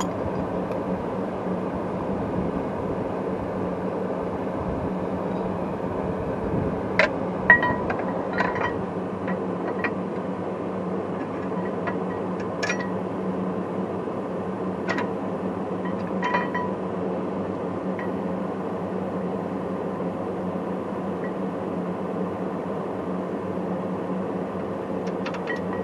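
Light, scattered metallic clinks of hand tools and hardware against the rear brake caliper bracket and hub, some ringing briefly, over a steady low hum. The loudest clinks come a little after seven seconds in.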